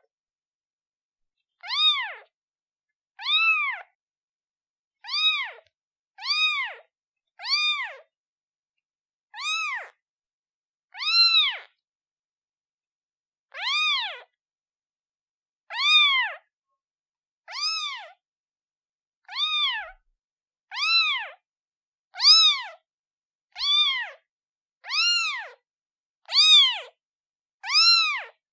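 Newborn kitten meowing over and over, about seventeen high, thin calls, each rising and then falling in pitch, roughly one every second and a half, with dead silence between them. The kitten is calling for its mother.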